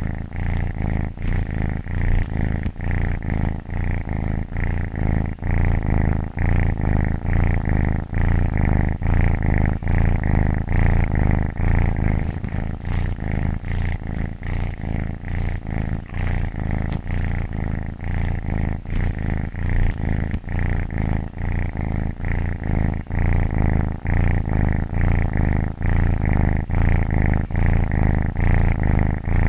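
Domestic cat purring steadily and close up, a low continuous rumble that swells and eases with each breath, in and out every couple of seconds.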